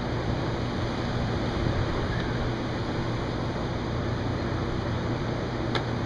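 Steady wash of wind and breaking surf mixed with the low, steady hum of an air-conditioner compressor unit. A brief click sounds near the end.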